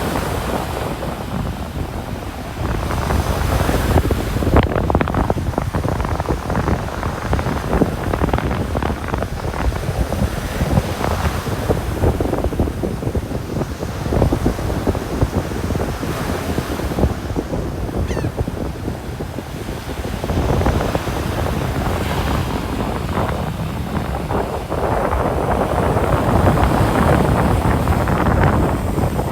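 Ocean surf washing onto a beach, waves breaking and rushing in swells every few seconds, with wind buffeting the microphone.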